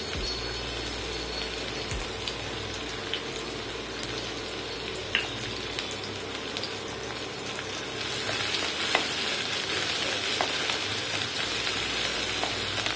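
Chopped onion frying in ghee with cumin seeds in a steel kadhai: a steady sizzle with a few light clicks, getting louder about eight seconds in. A wooden spatula starts stirring the onion near the end.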